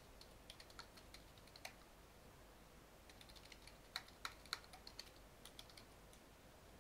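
Faint typing on a computer keyboard: irregular keystroke clicks in short scattered runs, the loudest few about four seconds in.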